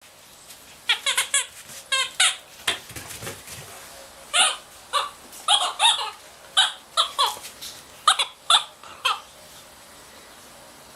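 Rubber squeaky dog toy squeezed over and over in a Brittany spaniel puppy's bite: a long run of short, high squeaks, some in quick pairs, stopping about nine seconds in.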